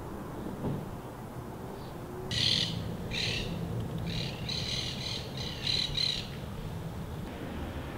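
A bird giving a run of several short, harsh calls over a few seconds in the middle, over a steady low background rumble.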